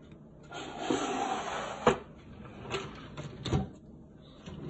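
Wooden drawer of a tool chest sliding shut with a rubbing scrape, ending in a sharp knock as it closes about two seconds in. Two lighter knocks follow a little later.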